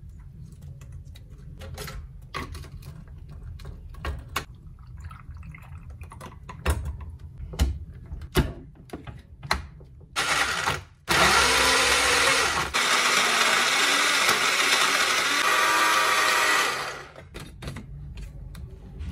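Personal bullet-style blender making a smoothie of ice, fruit and greens. First come knocks and clatter as the ingredients are packed into the cup and it is set on the base. About ten seconds in the motor gives a short pulse, then runs loudly for about six seconds, its pitch shifting as the load changes, and cuts off.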